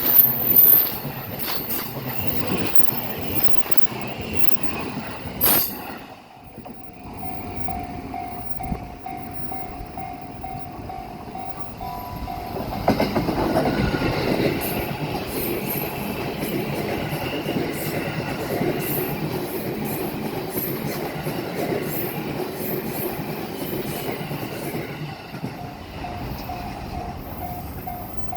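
Level-crossing warning bell ringing in a steady repeated ding, then a train passes over the crossing from about halfway through, louder than the bell. The bell is heard again near the end.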